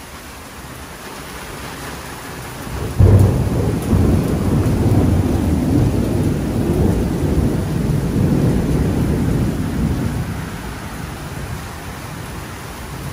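Heavy rain falling steadily, then a sudden loud thunderclap about three seconds in that rumbles on for several seconds and slowly fades back into the rain.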